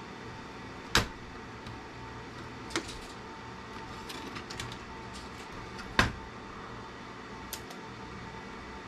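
Sharp clicks and snaps of a hand tool prying parts off a CB radio circuit board. Two loud snaps come about a second in and about six seconds in, with lighter ticks between.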